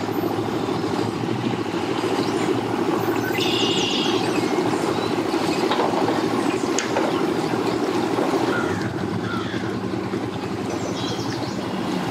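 Engines idling at a boat ramp: a steady low hum.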